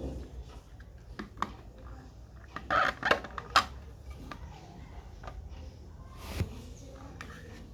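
Hands handling a small diecast model car and its plastic packaging: scattered light clicks and taps, with a short plastic rustle about three seconds in.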